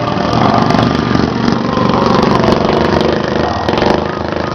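Stock-class racing riding lawn mower engines running steadily.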